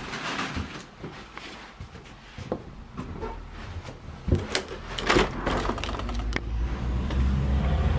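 Backpack being grabbed and carried while walking across a room, with camera handling noise: scattered knocks, clicks and rustles, and a low rumble that builds from about halfway.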